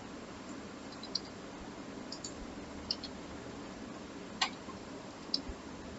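About five faint, scattered clicks of a computer mouse being operated, over a low steady hiss.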